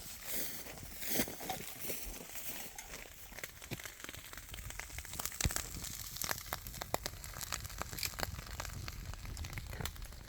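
A run of irregular small clicks and crackles over a low steady rumble.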